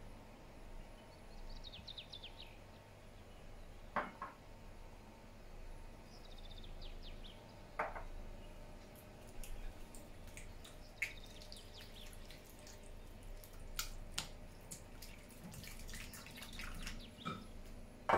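Silicone spatula stirring an egg into creamed butter in a glass bowl: soft wet squelching with occasional knocks of the spatula against the glass. A louder glass clink comes at the very end.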